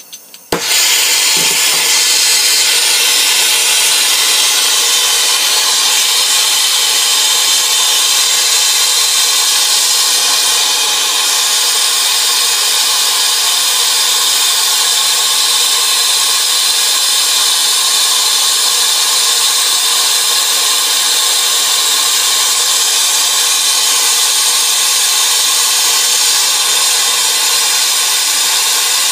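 Torch flame hissing steadily as it heats a 3/4 inch copper refrigerant line joint for silver soldering. The hiss starts suddenly about half a second in and then holds steady.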